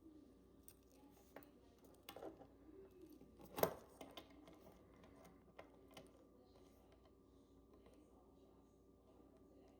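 Faint clicks and taps of small hard objects being handled, with one sharper click about three and a half seconds in, over a faint steady hum.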